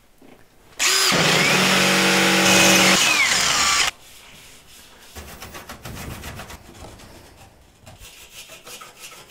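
A power drill runs at full speed for about three seconds, boring a bolt hole for the engine mount in a Van's RV-7 airframe, then cuts off suddenly. Softer scraping follows as the burr is cleaned off the fresh hole by hand.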